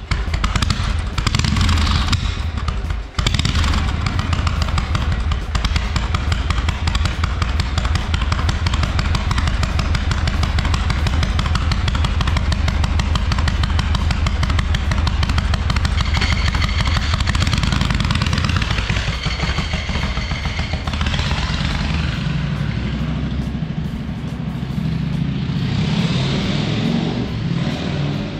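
1979 Harley-Davidson Shovelhead 1200 V-twin running on its freshly fitted Dyna-S electronic ignition, a fast, even stream of firing pulses. It dips briefly about three seconds in, then revs up and pulls away in the last several seconds.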